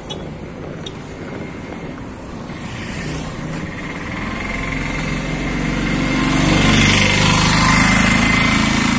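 A motor vehicle's engine on the road, growing louder over several seconds as it approaches and staying loud near the end.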